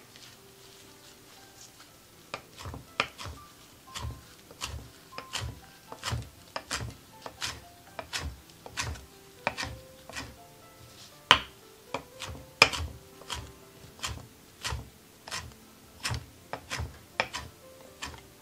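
Chef's knife chopping fresh herbs on a wooden cutting board: sharp knocks of the blade through the leaves onto the wood, about two a second, starting a couple of seconds in. Two strokes near the middle are louder than the rest.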